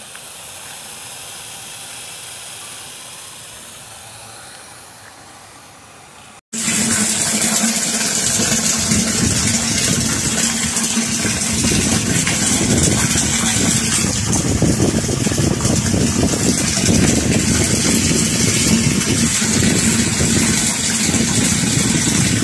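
Water from a newly installed deep-well pump pouring out of a pipe into a metal tank, a loud steady splashing rush over a steady low hum. It cuts in abruptly about six seconds in; before that there is only a softer hiss.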